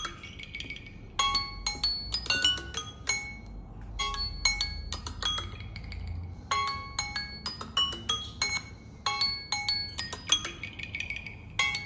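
Samsung Galaxy Z Flip3's timer alarm going off after the countdown has run out: a short melody of bright, clear notes that repeats about every two and a half to three seconds.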